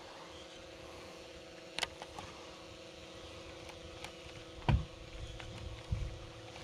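Faint, steady hum of a small motor, holding a fixed pitch, with a few light clicks and a dull knock about three-quarters of the way in.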